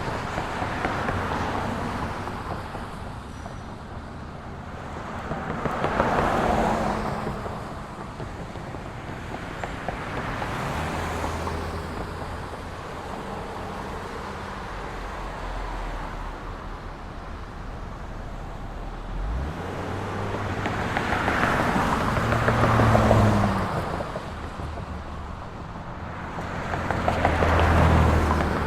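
Quiet roadside ambience: a low steady traffic hum with cars passing one at a time, about four passes that each swell and fade away.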